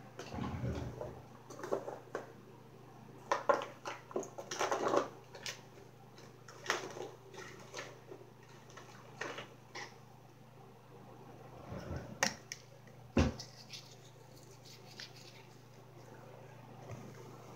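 Manual toothbrush scrubbing teeth in short, irregular wet strokes, with a couple of sharp knocks about two-thirds of the way through and a low steady hum behind.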